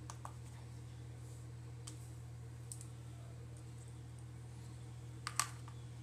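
Small clicks as a finger presses the button on a plastic digital kitchen scale, a few faint ticks, then near the end a sharper double clack as a charging cable with metal plugs is set down on the scale's plastic platform. A steady low hum sits underneath.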